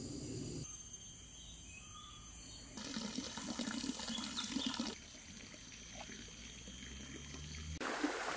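Flowing stream water, an even rushing and trickling with thin steady high tones above it. It gets louder about three seconds in and drops back at about five seconds.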